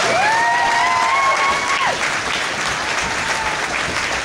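Crowd applauding. A high call from the crowd rises at the start and holds for about two seconds over the clapping.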